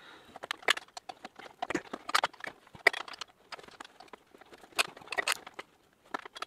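Irregular metallic clicks and knocks of a hand tool working against a bicycle frame while a metal bolt stuck in the aluminium frame is worked loose.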